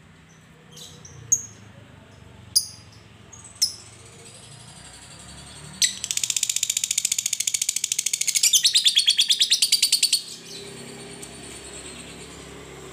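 Fischer's lovebird giving three or four sharp single chips, then about six seconds in breaking into a long, very fast rattling chatter, the 'ngekek' trill, which lasts about four seconds and stops suddenly.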